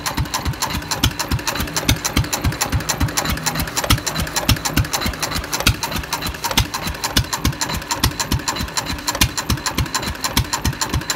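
Fairbanks-Morse Z 1 1/2 hp single-cylinder hit-and-miss stationary engine running on its first run after restoration, with a rapid, regular mechanical clatter over a steady low hum.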